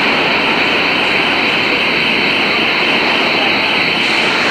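Loud, steady rumble of a New York City Subway train moving through an underground station, with a steady high hiss over it.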